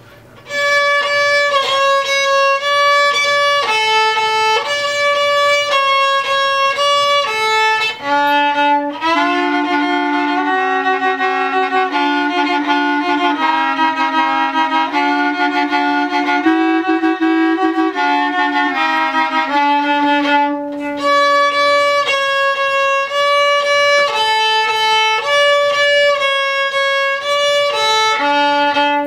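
Violin playing a lively fiddle-tune melody. A clarinet joins with a lower harmony line from about eight seconds in until about twenty seconds in, and comes in again near the end.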